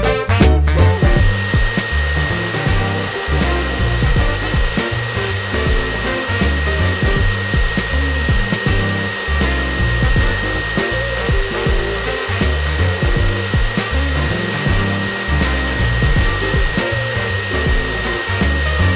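High-velocity dog grooming blower running steadily: a rush of air with a thin, steady whine. It comes in just under a second in and stops at the very end.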